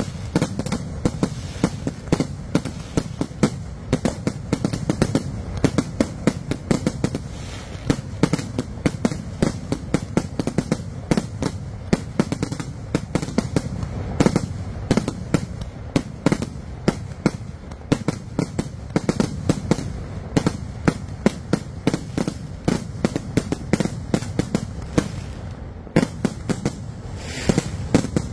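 Kerala koothu vedikkettu fireworks barrage: aerial shells launched and bursting in rapid, unbroken succession, a dense stream of sharp bangs several a second over a steady low rumble.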